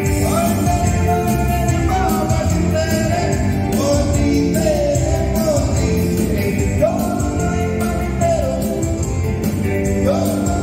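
Live electronic keyboard music with a singer's voice, played to a steady dance beat in the soltinho rhythm; the sung melody rises and falls over a continuous bass and drum pattern.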